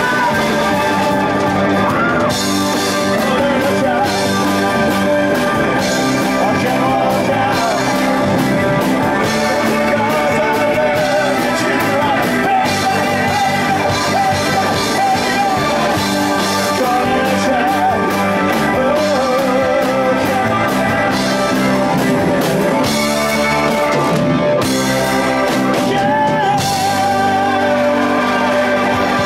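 Live blues-rock band playing loud and without a break: a male voice singing over electric and acoustic guitars and drums.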